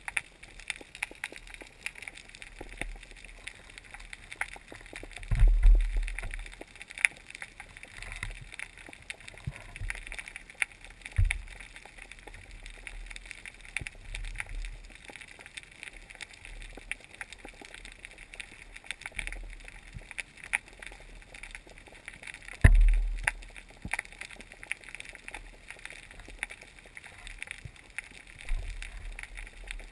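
Underwater reef ambience heard through a camera housing: a steady crackle of short clicks, with a few low thumps, the loudest about five seconds in and again about two-thirds of the way through.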